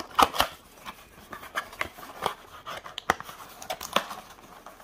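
Hands prying open the end flap of a cardboard trading-card blaster box: a scatter of short sharp clicks and scrapes of cardboard, the loudest just after the start.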